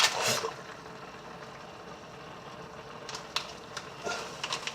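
Food sizzling in a pan on the stove: a steady hiss with a faint hum under it. It opens with a brief loud burst, and scattered sharp clicks and crackles come in over the last second and a half.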